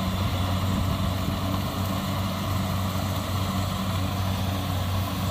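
Kubota DC-70 Plus rice combine harvester's diesel engine running steadily as it cuts and threshes ripe rice, a constant low engine drone.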